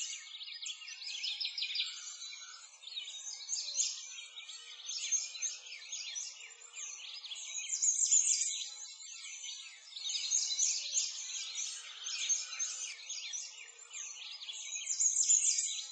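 Dense chorus of small songbirds chirping, many quick high-pitched calls overlapping, swelling and fading in loudness every few seconds.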